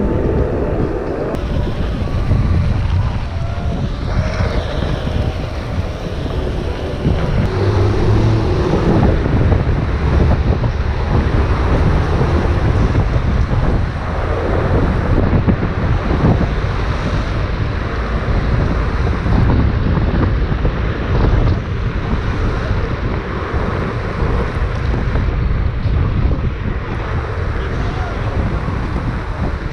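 Wind buffeting the microphone during a Onewheel XR ride: a loud, steady low rumble of rushing air.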